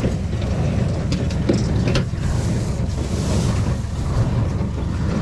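Ford 4000 tractor engine running steadily with a low rumble, with wind buffeting the microphone and a couple of light clicks about one and a half to two seconds in.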